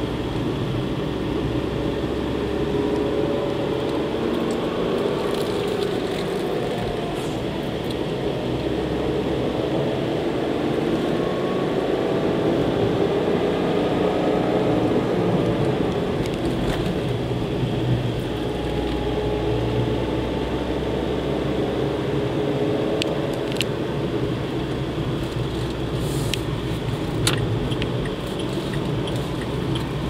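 Car driving, heard from inside the cabin: a steady rumble of engine and tyres, with the engine note drifting gently up and down. A few light rattles and clicks come near the end.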